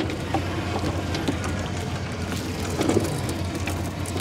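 Small fishing boat's engine running at a steady low idle, with scattered light clicks and taps on top.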